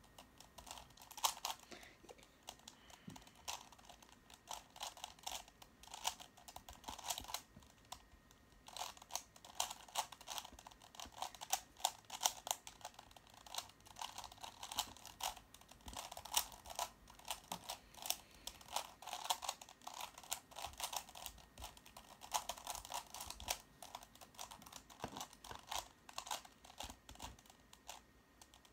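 Plastic Square-1 puzzle cube being turned by hand: quick, irregular clicking and clacking of its layers, with a short pause about eight seconds in.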